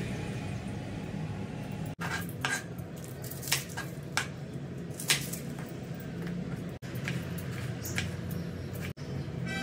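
Kitchen dishes and metal utensils clinking now and then, a dozen or so light, sharp clinks at irregular intervals over a steady low hum.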